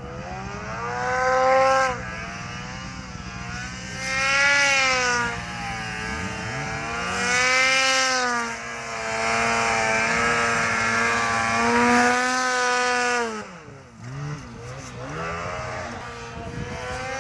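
Snowmobile engine revving up and easing off again and again as the sled plows through deep powder, with about four surges. It drops back sharply near the end.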